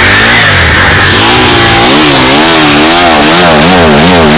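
Motorcycle engine being revved hard in quick repeated throttle blips, its pitch swinging up and down about twice a second after a steadier first second.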